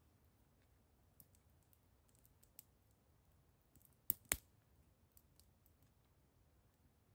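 Small wood fire crackling: scattered faint clicks, with two loud sharp pops close together about four seconds in.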